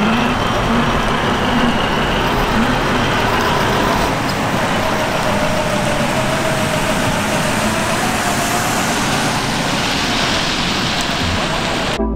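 Steady rush of water around a Traxxas TRX-4 Sport RC crawler, with the faint whine of its electric motor and drivetrain rising and falling as it crawls. The sound cuts off abruptly near the end.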